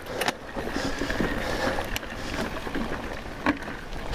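Mountain bike rolling down a dirt trail: a steady rush of tyre and wind noise, with a few sharp knocks as the bike hits bumps.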